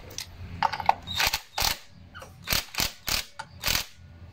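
Electric impact driver running in a series of short bursts, about six or seven, on the clutch spring bolts of a Yamaha Sniper 150, the hammer mechanism rattling with each trigger pull.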